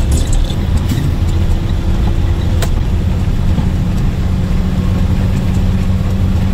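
Semi-truck engine and road noise heard from inside the cab at highway speed: a steady low drone with an even hum.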